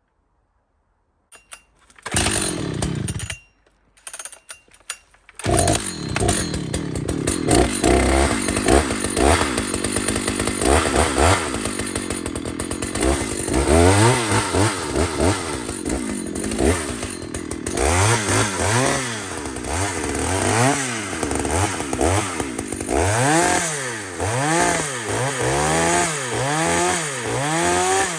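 Chainsaw starting: a short burst about two seconds in dies away, then the saw catches a few seconds later and runs. It is revved up and down repeatedly, about once a second near the end.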